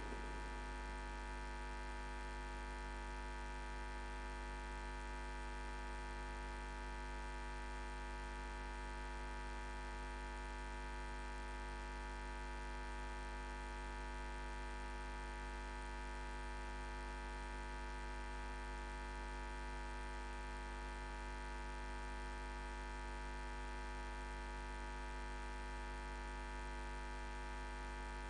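Steady electrical mains hum from the audio feed, unchanging, with no other sound over it.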